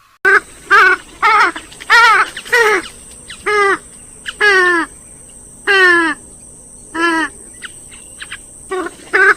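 Recorded calls of rail-family waterbirds such as swamphens and moorhens: a series of about ten short, loud calls, several sliding down in pitch, with a few quieter short notes in between.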